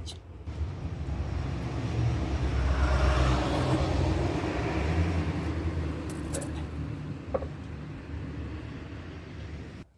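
A low rumble that builds over the first few seconds, then slowly fades and cuts off abruptly near the end, with a couple of faint clicks a little past the middle.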